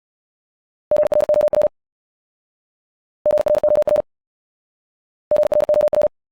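Morse code sent at 70 words per minute as a single steady beep tone keyed in rapid dots and dashes. It comes in three short bursts about two seconds apart, each under a second long.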